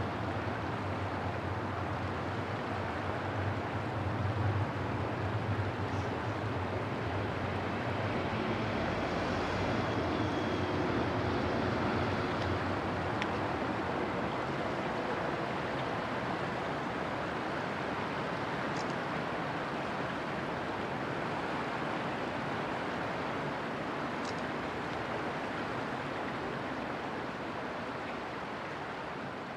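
Diesel engine of a passing inland tanker ship, a low drone strongest in the first several seconds, over a steady rushing noise of river water and the ship's wash.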